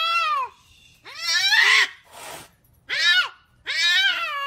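Domestic cat meowing loudly and repeatedly, about four drawn-out meows each under a second, rising then falling in pitch, one of them harsher than the rest.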